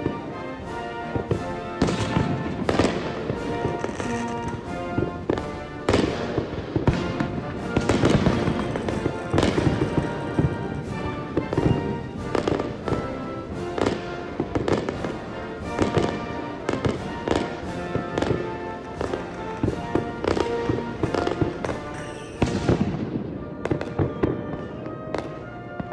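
Aerial fireworks exploding in quick succession, one or two bangs a second, with music playing throughout.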